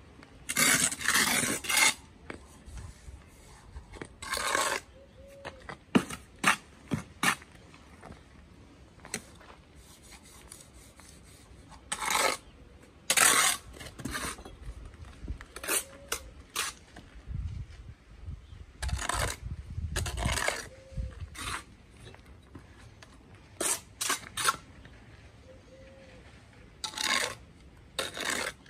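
A steel brick trowel scraping and clinking on a mortar board and along a course of blue engineering bricks as mortar is scooped, spread and cut off. It comes in short separate bursts of scraping, with occasional sharp taps.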